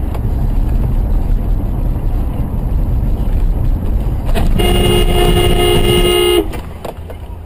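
Car horn held in one long blast of about two seconds, two close notes sounding together, as a dump truck cuts across in front. Under it, the steady rumble of road and engine noise heard from inside the car.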